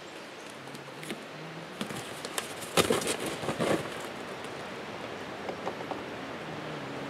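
Handling noise as a hare is let out of its carrier onto crusty snow: a few sharp clicks and knocks, then about three seconds in a loud, crackling scrape and rustle of the carrier and a cardboard box being moved, lasting about a second.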